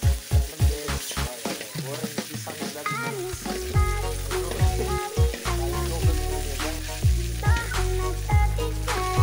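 Oil sizzling and spitting in a wok as whole green citrus fruits and guava fry and are stirred with a metal spatula, over a background music track with deep sliding bass kicks and held notes.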